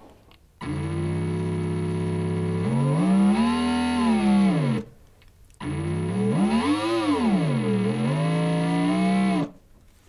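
Cordless electric drill's motor picked up by an electric guitar's electromagnetic pickup and played through a guitar amplifier: an electric drone with many overtones that really sounds like an electric car. It runs twice, about four seconds each, with a short gap between. Its pitch holds steady, then rises and falls as the motor speed changes.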